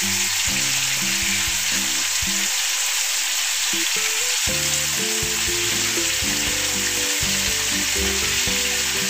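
Marinated chicken pieces sizzling steadily in hot oil in a non-stick wok while they are turned over with steel tongs.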